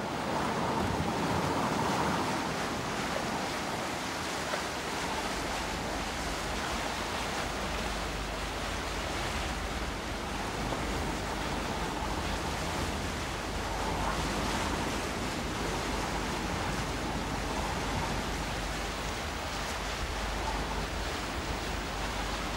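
Wind and sea rushing past a moving coastal ship, a steady noisy wash that swells a little near the start and again about halfway through. A low rumble comes in after a few seconds.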